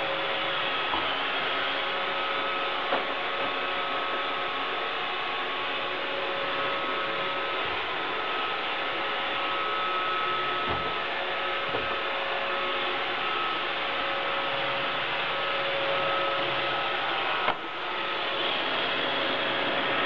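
iRobot Roomba 580 robot vacuum running: a steady whir from its vacuum and brush motors with two faint steady whining tones, and a few light clicks, the sharpest one near the end.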